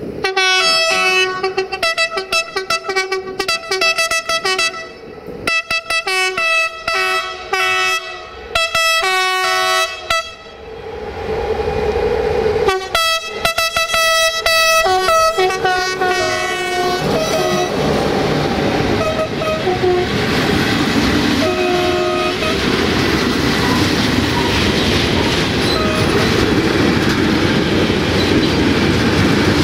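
Locomotive horn sounding in many short blasts for about the first sixteen seconds, then a train running past with its wheels clattering on the rails while the horn sounds a few more times.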